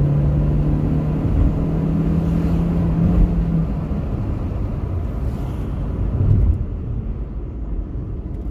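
Car engine running with a steady note for about three and a half seconds, then giving way to a low rumble.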